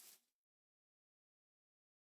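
Near silence: a louder sound cuts off at the very start and fades out within about half a second, then nothing.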